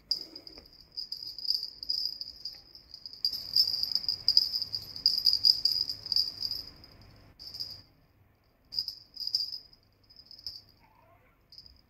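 Two small bells on a rope jingling in bursts as a kitten bats and tugs at them, with the kitten scrabbling on a fabric towel through the middle of the stretch.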